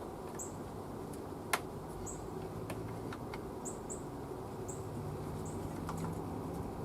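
Small clicks and taps of plastic wiring-connector clips being pried off a Sprinter van's shifter, one sharper click about a second and a half in. Several brief high chirps are scattered through, over a steady low hum.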